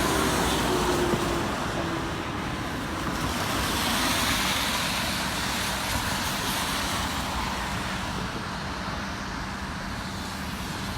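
Road traffic passing on a rain-wet bridge: a steady hiss of tyres on wet pavement with engine noise that swells and fades as vehicles go by.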